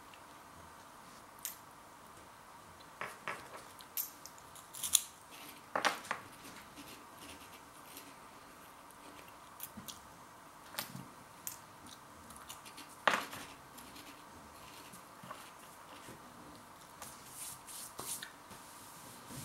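Crunchy corn cheese curls being bitten and chewed: a scattering of short, sharp crunches, the loudest about five, six and thirteen seconds in.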